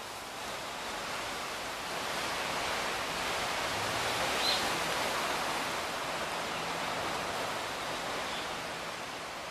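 Steady rushing outdoor background noise that swells slightly midway, with one brief high chirp about halfway through.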